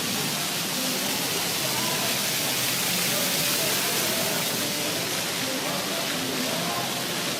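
Steady, even hiss with faint voices talking underneath.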